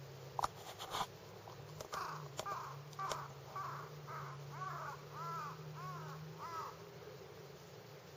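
A crow cawing: a run of about nine caws, roughly two a second, starting about two seconds in and stopping near the end. A few sharp clicks come just before the calls.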